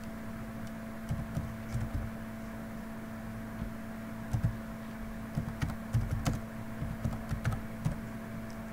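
Keystrokes on a computer keyboard, tapped in short irregular runs, over a steady low hum.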